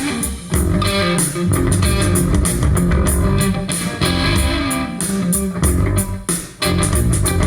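Rock music played back on a home hi-fi stereo: an instrumental passage of electric guitar, bass guitar and drums, with two brief breaks in the band.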